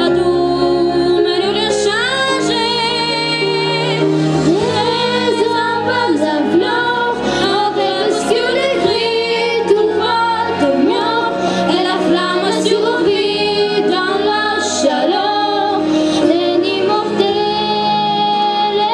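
A child singing a song solo into a microphone over instrumental accompaniment. The sung melody wavers and glides in pitch above steadily held backing notes.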